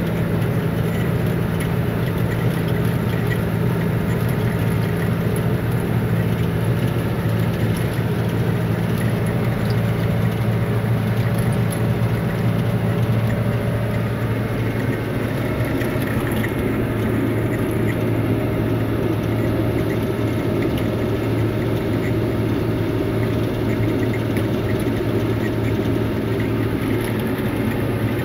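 Tractor engine running steadily, heard from inside the cab as the tractor drives across a field. It is a constant low drone, and its tone shifts slightly about halfway through.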